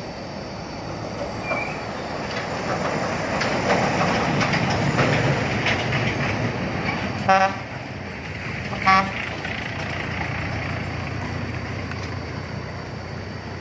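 Road traffic passing: the rumble of a heavy vehicle swells for several seconds and then eases off. Near the middle, a vehicle horn gives two short toots about a second and a half apart.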